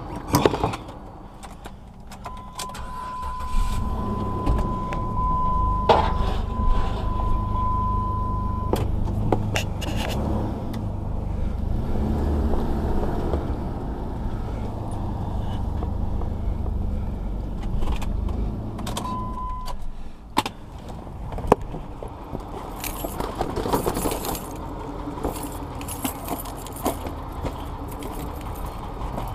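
Car engine running low, heard inside the cabin, with a steady electronic warning tone held for several seconds and then again briefly; the engine stops about twenty seconds in. Keys jingle, with clicks and knocks of door and handling.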